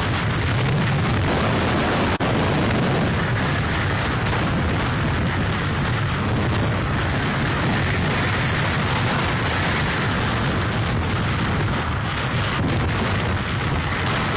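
Hurricane-force wind and driving rain buffeting a webcam's microphone: a loud, dense, steady rush with a heavy low rumble, broken by a brief dropout about two seconds in.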